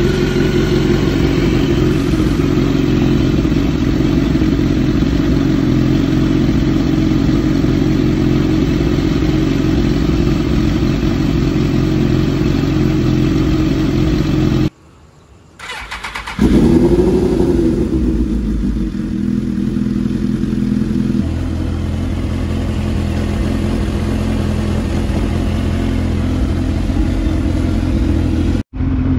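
Suzuki GSX-R1000's inline-four engine idling steadily while its throttle bodies are vacuum-synchronised. After a short break about halfway through, the engine is heard again: a sudden loud start, a brief rev up and down, then a steady idle.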